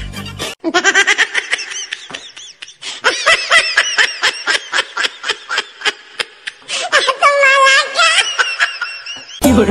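High-pitched snickering laughter in quick repeated bursts, thinner around two seconds in and changing character about seven seconds in.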